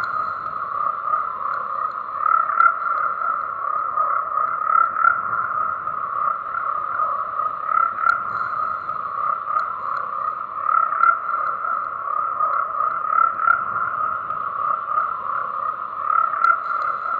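A dense, unbroken chorus of frogs calling, held at one steady pitch, with small swells in loudness every second or so.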